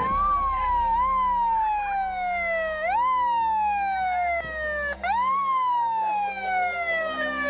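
Emergency vehicle siren on an approaching fire department pickup truck, wailing in repeated cycles. Each cycle rises quickly and then falls slowly in pitch, about every two seconds, with a brief break about five seconds in.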